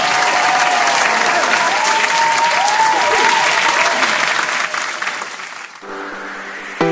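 Audience applause and cheering, fading out about six seconds in. A few notes of music start right at the end.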